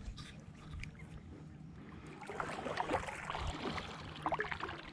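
Kayak paddle strokes in the water. The splashing and dripping grow thicker from about two seconds in until near the end.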